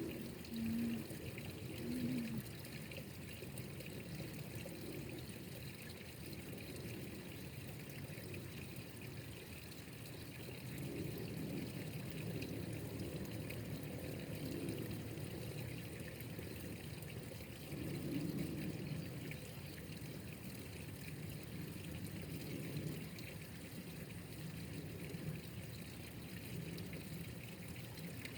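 Water trickling and pouring steadily, with a few low swells in strength.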